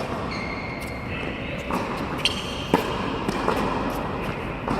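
Tennis balls being struck by rackets and bouncing on an indoor court, with a few sharp hits in the second half, over a steady background with some brief high squeaks.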